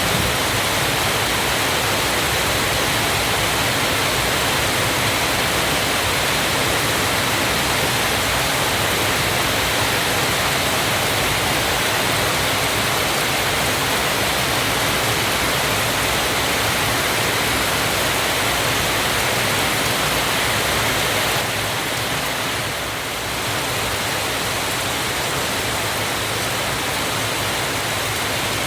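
Waterfall: a steady, dense rush of falling water. It dips briefly about three-quarters of the way through, then carries on slightly quieter.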